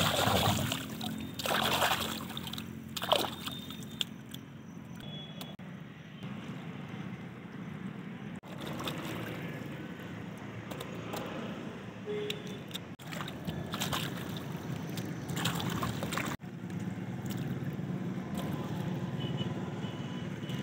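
Hands splashing and sloshing shallow pond water, loudest in the first three seconds, then softer trickling and a few splashes as water lily stems and seed pods are pulled from the water.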